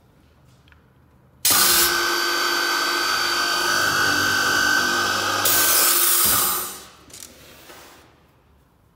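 Blum MINIPRESS PRO boring machine's motor starting suddenly about one and a half seconds in and running for about five seconds as its two 5 mm drill bits bore into a cabinet panel, then running down and fading out.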